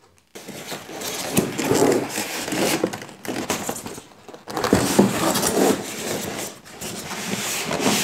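Scraping and rustling of a polystyrene foam packing block being worked out of a cardboard box, in irregular bursts.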